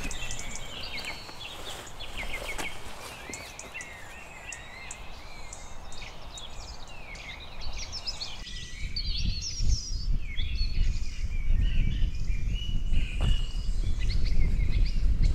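Small birds chirping and calling, many short rising and falling notes. In the second half a low rumbling grows louder underneath them.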